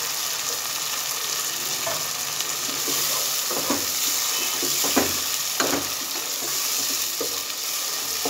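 Onion-and-spice masala with freshly added chopped tomatoes sizzling in hot oil in a nonstick pot, stirred with a wooden spatula. The frying hiss is steady, with several scrapes of the spatula against the pan in the middle.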